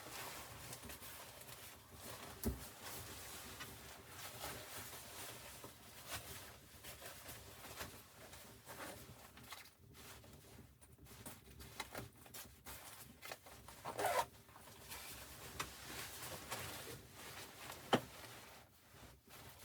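Close rustling and handling noises with scattered small clicks, broken by a few sharper knocks, about two and a half seconds in, near fourteen seconds and near eighteen seconds.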